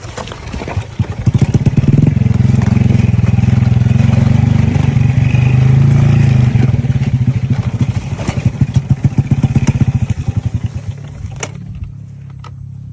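Trail motorcycle engine pulling hard, its revs climbing about a second in and held high, then easing back to a low idle near the end.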